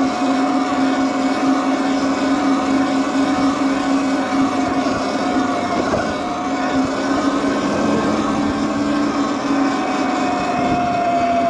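Electric bike motor whining steadily while riding, over a constant rush of noise. Near the end the whine falls in pitch as the bike slows.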